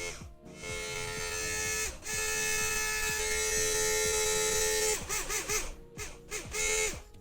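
Small DC motor of a homemade drill running with a steady hum and hiss. Its pitch dips and wavers several times from about five seconds in. Background music plays alongside.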